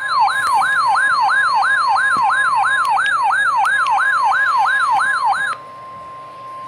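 Weather alert radio sounding its alarm: a fast, repeating up-and-down siren sweep, about three a second, over a steady single tone, the NOAA Weather Radio 1050 Hz warning alarm tone that signals a warning-level alert is being broadcast. The siren stops about five and a half seconds in, leaving the steady tone.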